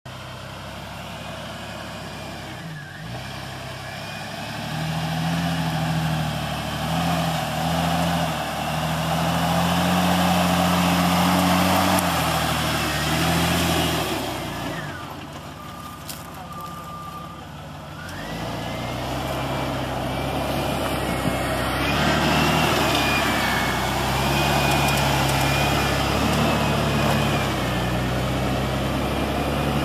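Off-road 4x4's engine running under load as it crawls up a trail. The revs rise and fall, easing off about halfway before picking up again.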